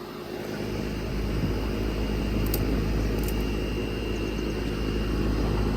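A 2005 Ducane central air conditioner's outdoor condensing unit running: a steady hum with a low rumble from the compressor and condenser fan.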